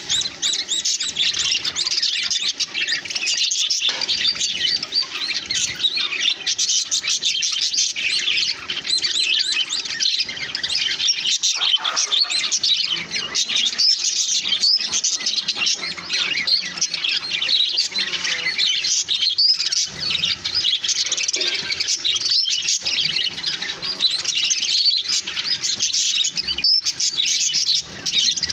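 A group of budgies chirping and chattering together, a dense, continuous stream of quick high chirps.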